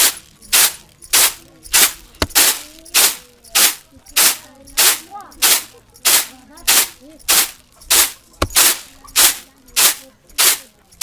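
Hard-bristled broom sweeping rough concrete in steady, even strokes, a little under two brushing swishes a second.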